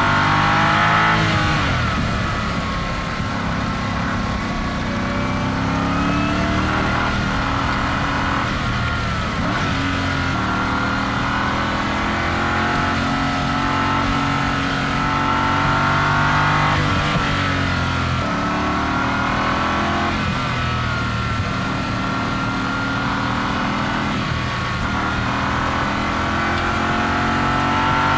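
Ford Mustang Dark Horse SC's supercharged V8 running under repeated acceleration, its pitch climbing and dropping several times, with a high whine that rises and falls with the engine.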